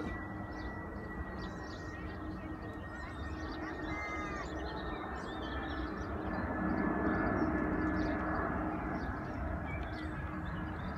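The twin turbofan engines of an Airbus A300-600ST Beluga running as it approaches overhead: a steady jet noise with a held high whine, growing louder about six seconds in. Small birds call over it.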